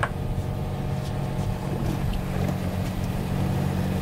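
Boat engine running steadily, a low even drone with no change in pitch.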